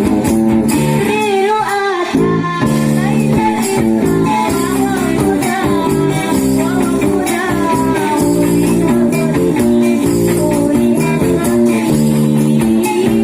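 Sholawat, Islamic devotional music: a sung melody over instrumental accompaniment, with a brief drop about two seconds in.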